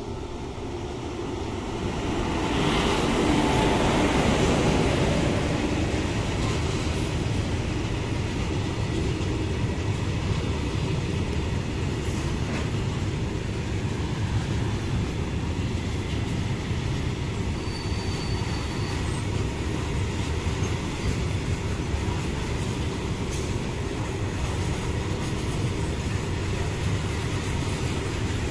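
Indian Railways WAG-7 electric freight locomotive passing close by, growing louder to a peak a few seconds in. The steady rumble and rattle of loaded covered freight wagons rolling past on the rails follows.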